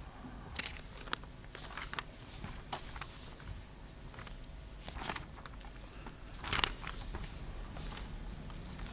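Faint, irregular rustles, clicks and footsteps of a person moving about a council chamber, with one sharper click-like rustle about two-thirds of the way through.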